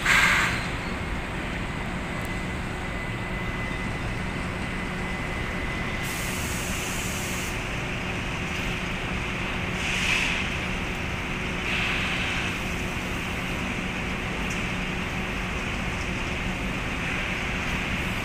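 Steady rumble and low hum of the inclined cement-bag conveyor running. A short sharp rustle comes right at the start, a high hiss lasts over a second about six seconds in, and softer rustles follow around ten and twelve seconds.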